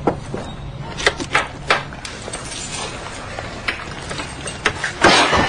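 A few sharp clinks and knocks of tableware, then a louder clattering crash near the end.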